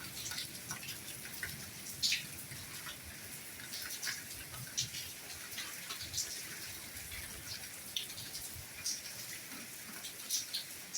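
Steady soft rain with the ticks of scattered drops, a few of them louder, landing close by.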